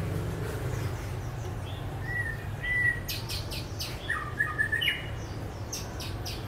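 Caged songbirds chirping in short notes, with a quick cluster of sharp chip notes about halfway through, over a steady low hum.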